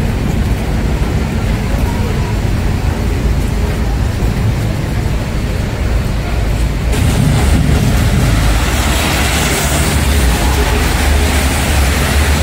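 Street traffic on wet roads: a steady low rumble of vehicles, with a louder hiss of tyres on wet asphalt from about seven seconds in.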